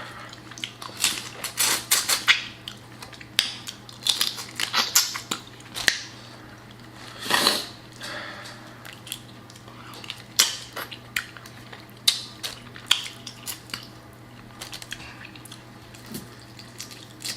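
Close-miked cracking and crunching of boiled crawfish and shrimp shells being peeled by hand and eaten: many sharp, irregular clicks and crunches, with one longer, louder noisy sound about seven and a half seconds in.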